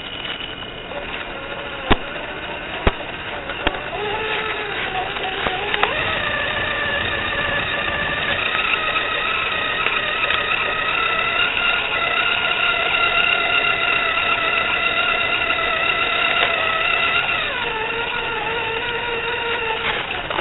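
Electric drive motor and gears of a scale RC crawler truck whining, heard through its onboard microphone. The pitch rises about six seconds in, holds steady, and falls back near the end. There are a few sharp clicks in the first few seconds.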